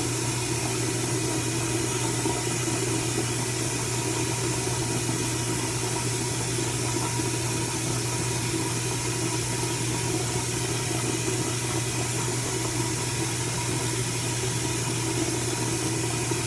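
Steady rushing background noise with a constant low hum, unchanging throughout.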